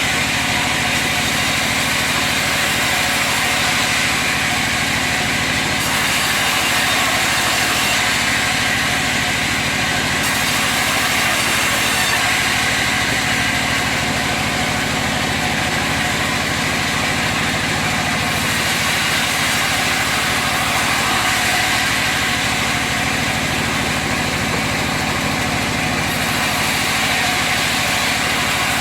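Sawmill log-sawing machine running with a steady engine-like drone. Its high end shifts slightly every few seconds.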